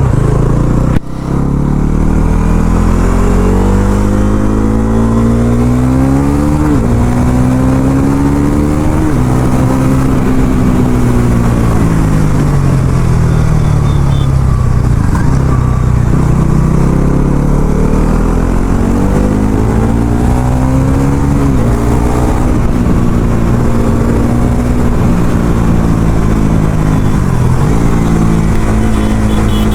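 Bajaj Pulsar NS400Z's single-cylinder engine through its stock exhaust, pulling hard under acceleration. The pitch climbs and drops sharply at an upshift about seven seconds in, climbs again, then sinks slowly as the bike eases off. It rises once more to a second sharp upshift around twenty-one seconds, then holds fairly steady.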